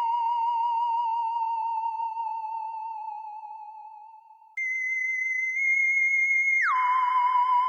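Sci-fi alien sound effect: an electronic, theremin-like wavering tone that slowly fades away, starts again suddenly at a higher pitch about four and a half seconds in, then near the end slides sharply down to a lower wavering tone.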